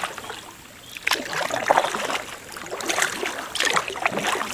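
Kayak paddle dipping and pulling through river water: irregular splashes and drips, with sharper splashes about a second in and again near three seconds.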